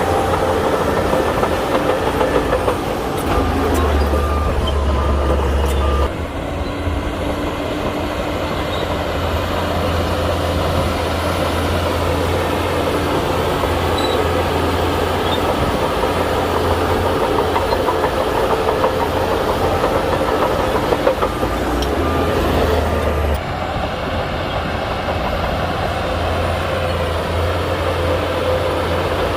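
Shantui crawler bulldozer's diesel engine running under load with the clatter of its steel tracks. The sound shifts abruptly twice.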